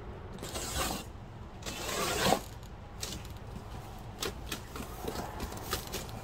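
Handling noise from boxes and goods being unpacked: two rustling scrapes in the first couple of seconds, then a run of light clicks and knocks.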